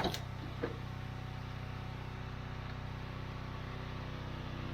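Pressure washer's motor running steadily: a low, even hum with a light hiss.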